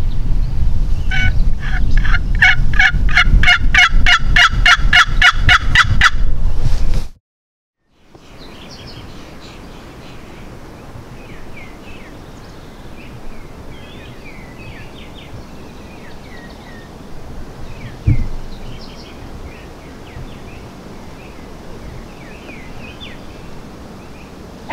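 Wooden box turkey call worked in a long string of evenly spaced calls, about four a second for some five seconds, over a low rumble. It cuts off after about seven seconds; then small songbirds chirp, with a single thump about halfway through.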